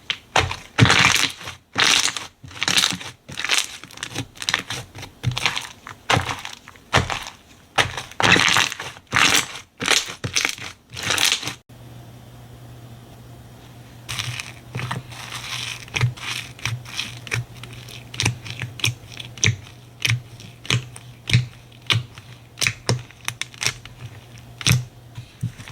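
Slime being squeezed and pressed by hand, giving dense crunchy, crackling strokes. About halfway through there is a sudden change to a quieter stretch of soft clicking and popping over a steady low hum.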